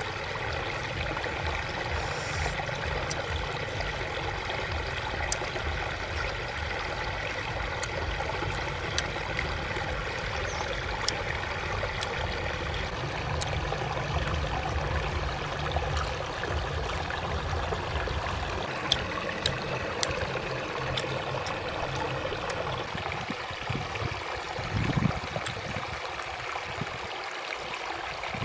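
Steady rush and trickle of a shallow stream, with scattered small sharp clicks and a low rumble that fades out about two-thirds of the way through.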